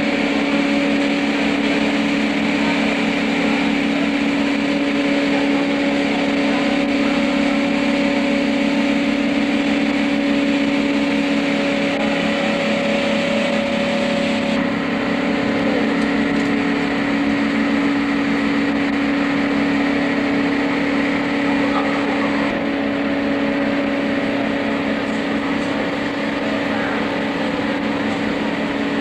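Marshmallow production machinery running: a loud, steady mechanical drone with a constant low hum that does not change.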